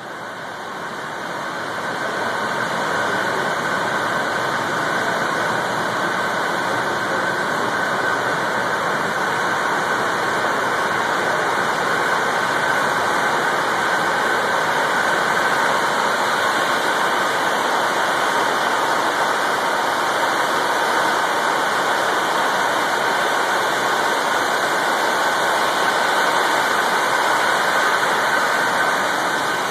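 Cooling fans of a supercomputer cluster's rack servers running together as a loud, steady rush of air, growing louder over the first two seconds. It is the fans carrying about 2 megawatts of heat out of the machines.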